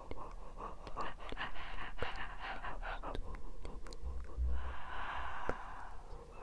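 Close-miked breathing and soft breathy mouth sounds with small clicks. About four and a half seconds in comes a longer, stronger breath with a low rumble on the microphone.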